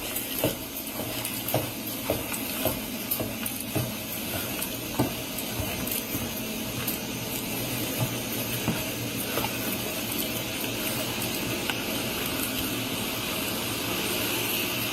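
Steady hiss from a police body camera's microphone, with scattered light knocks and taps through the first part.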